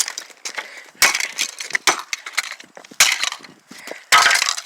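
Plastic housing of a pair of wireless headphones cracking and snapping as it is broken apart, with a sharp crack about once a second.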